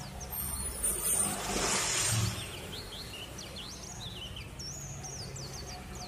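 Small birds chirping in quick, repeated high notes over a steady low hum, after a brief rushing noise in the first two seconds.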